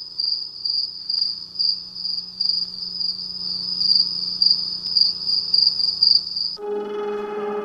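JBL Flip 4 Bluetooth speaker playing a song intro: a high cricket-like chirping that pulses about twice a second over a steady low hum. Near the end it cuts off suddenly and gives way to sustained bell-like synth chords.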